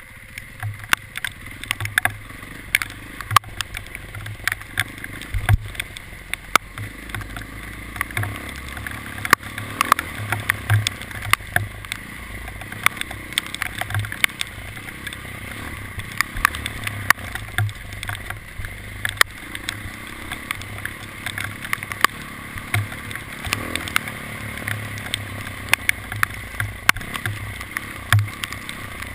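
A vehicle running steadily, with many sharp, irregular clicks and knocks throughout.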